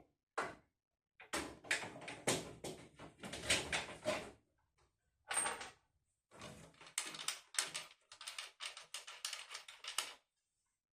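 A rapid run of clattering clicks and knocks from hard objects being handled, in bursts of several per second with short pauses between.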